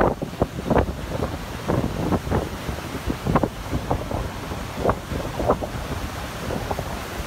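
Strong gusty wind buffeting the microphone in irregular bursts, over the steady rush of heavy surf breaking and washing in.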